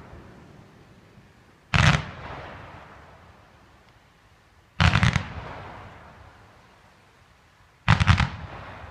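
Firework cake firing fanned volleys of comets: three volleys about three seconds apart, each a quick cluster of several bangs followed by a long fading echo.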